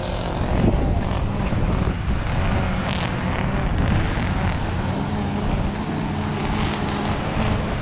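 Wind buffeting the microphone, with ocean surf washing against the rocks below: a steady, rumbling rush of noise.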